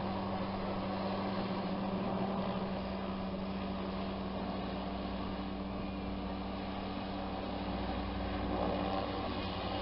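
Zeppelin airship's engines and propellers running overhead, a steady droning hum with a deeper rumble that grows from about three seconds in.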